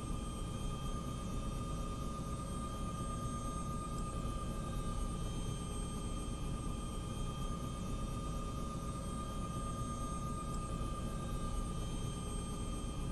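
Helicopter in steady flight: a constant low rumble with a steady high whine over it.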